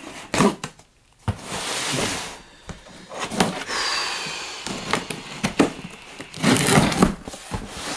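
Pocket knife slitting packing tape along the seam of a cardboard box: repeated scraping and ripping strokes, a long one about a second in, with knocks and rustles of the cardboard.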